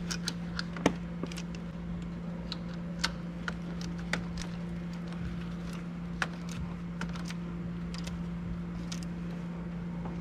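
Scattered light clicks and taps of a bolt and hand tools as a thermostat-housing bolt is fed in and threaded down from the top of the engine bay. The clicks are irregular, with the sharpest about a second in, over a steady low hum.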